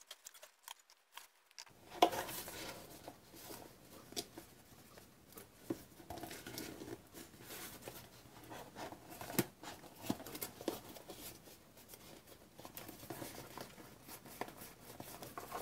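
Paper and cardstock handled and folded by hand: a sharp click about two seconds in, then scattered rustles, creases and small taps.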